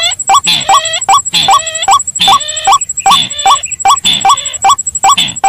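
Looped bird-lure recording of white-breasted waterhen and slaty-breasted rail calls: a harsh, hooked call repeated several times a second without a pause.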